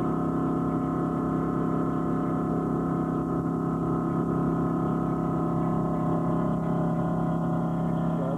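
Fishing trawler's engine running, a steady drone made of several held tones over a low rumble.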